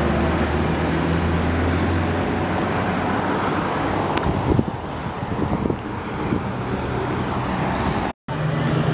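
Street traffic: a vehicle engine hum over steady road noise, with the sound cutting out for an instant near the end.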